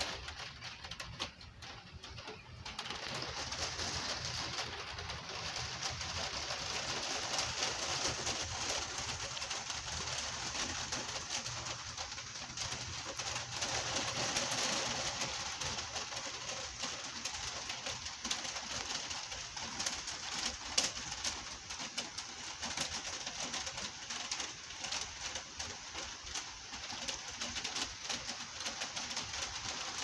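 Gentle rain falling steadily, an even hiss that dips briefly about a second in and then holds steady.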